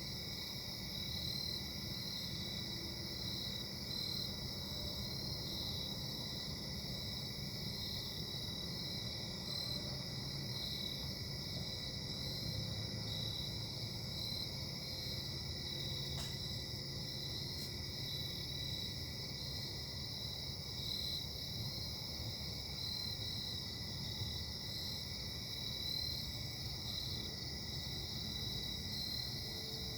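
Distant industrial engine at a casting plant running steadily: a low rumble under steady high-pitched whining tones, which the uploader attributes to bad bearings.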